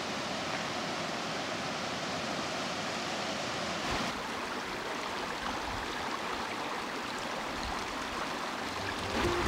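Rushing stream water tumbling over rocks, a steady, even wash of sound that changes slightly about four seconds in.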